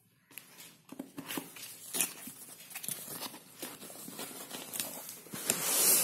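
Cardboard box being opened by hand: scattered clicks and scrapes of the flaps being worked, then a louder sliding scrape near the end as the fabric carry case is pulled out.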